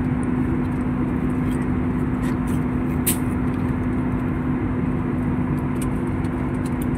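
Steady drone of an airliner cabin in flight, from engine and airflow noise, with a constant low hum under it. A few small clicks and rustles from snack packaging being handled sit on top, the sharpest about three seconds in.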